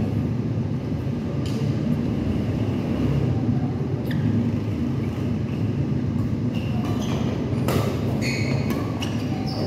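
Badminton rally: a few sharp racket strikes on the shuttlecock and short squeaks of shoes on the court over a steady low rumble.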